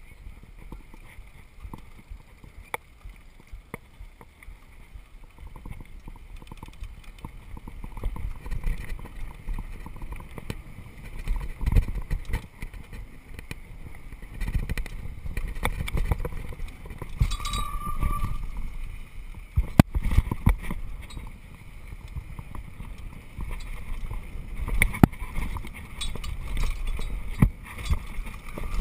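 Downhill mountain bike descending a gravel track: wind rushes over the camera mic and the tyres crunch on loose gravel, getting louder as speed builds from about 8 seconds in. The bike rattles and clacks over bumps, with one sharp clack about 20 seconds in. About 17 seconds in the disc brakes squeal briefly in a high, steady tone.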